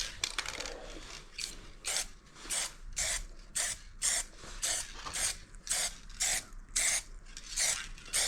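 Aerosol can of clear coat being shaken, its mixing ball rattling inside in regular strokes, a little under two a second.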